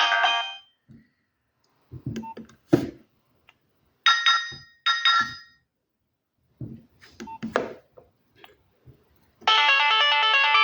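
A Nokia 6030 polyphonic ringtone cuts off about half a second in. Scattered clicks and taps follow, with two short electronic beeps in the middle. About nine seconds in, the next polyphonic ringtone starts.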